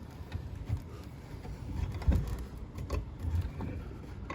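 Low rumbling with scattered knocks, one sharper knock about two seconds in: handling and work noise.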